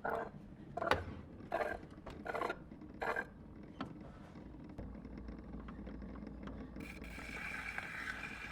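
Wind-up gramophone being cranked by hand: a rasping stroke about every 0.7 s for the first three seconds. Then a steady low hum, and about seven seconds in a steady hiss of a needle running on a record.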